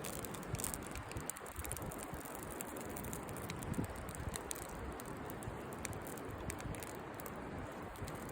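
Campfire burning, with scattered small crackles and pops over a steady low rush.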